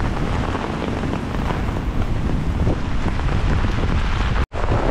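Heavy rain falling onto a flooded street, with strong wind buffeting the microphone. The sound cuts out for an instant near the end.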